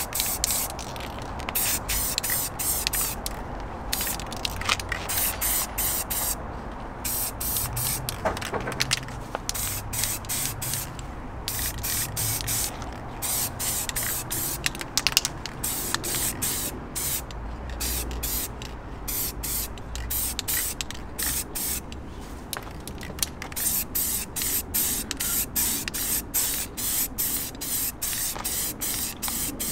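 Aerosol spray-paint can hissing in many short bursts with brief gaps, as a coat of gloss black paint is sprayed onto a car wheel.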